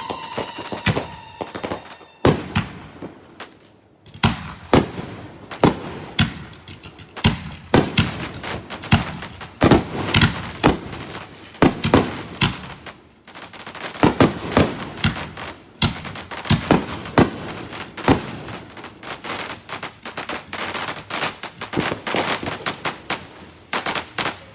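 Fireworks going off in rapid volleys of sharp bangs and crackling reports, with short lulls between volleys. A falling whistle fades out in the first second and a half.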